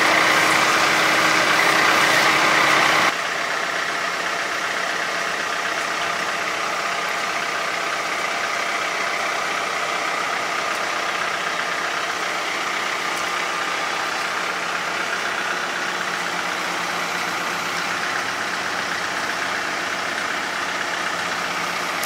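Compact utility tractor's diesel engine running steadily. It is louder for the first three seconds, then drops to a steady lower level.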